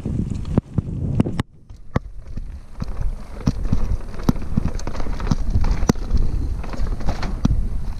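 Orbea Occam mountain bike ridden fast down a dirt singletrack: a continuous rumble of tyres and wind buffeting the microphone, with frequent sharp clicks and knocks as the bike rattles over bumps. The noise dips briefly about one and a half seconds in.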